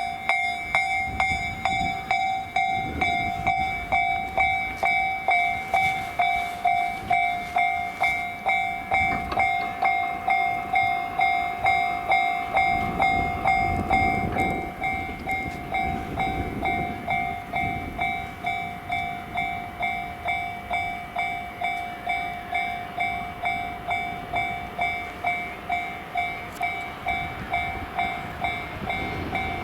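Japanese level crossing's electronic warning bell starts suddenly and rings a steady two-tone clang, about one and a half strokes a second, warning of an approaching train. A train's low rumble passes about halfway through.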